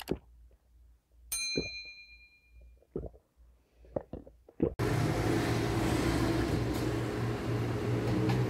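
Sipping and swallowing through a straw from a plastic cup, a few separate sips, with one ringing clink about a second in. About five seconds in it cuts suddenly to loud music over a noisy haze.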